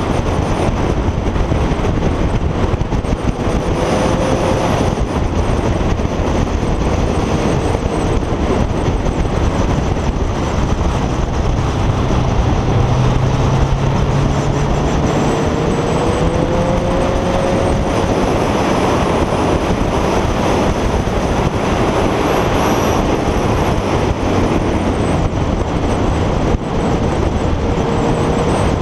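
Kawasaki ZZR motorcycle cruising at road speed: a steady rush of wind over the camera with the engine's note underneath, its pitch drifting slowly up and down.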